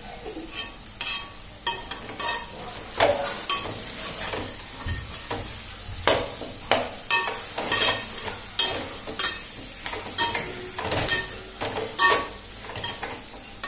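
Metal spatula scraping and clinking against the sides and bottom of an aluminium pot in repeated, irregular strokes as potatoes and fenugreek leaves are stirred in oil, over a steady frying sizzle. The potatoes are sticking to the pot, so they are being stirred firmly.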